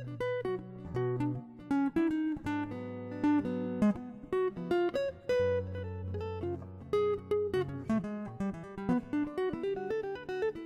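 Background music: a solo guitar piece, quick plucked melody notes over held bass notes.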